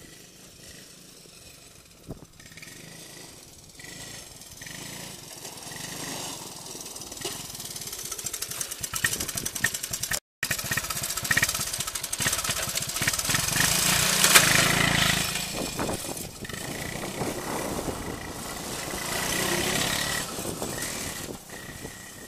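Honda ATC185S three-wheeler's single-cylinder four-stroke engine running as it is ridden, growing louder as it approaches and rising and falling as it passes close. It cuts out for an instant about ten seconds in and is loudest a little after the middle.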